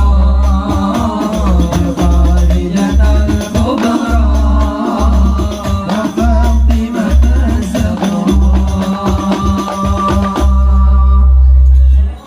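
Islamic sholawat song with hadrah percussion: singing over deep, regular bass-drum beats and jingling frame-drum hits. Near the end the music settles on a held closing chord and stops.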